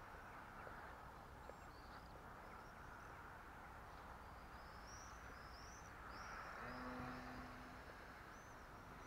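Faint outdoor quiet with small birds chirping high and thin throughout. A faint steady hum comes in briefly about two-thirds of the way through.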